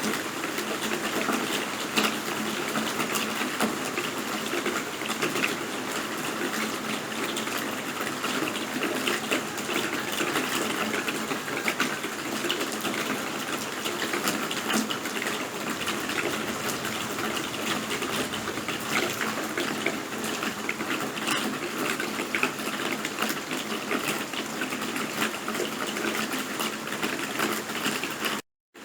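Steady rain with a dense patter of many small, sharp drop impacts. The sound cuts out for a split second near the end.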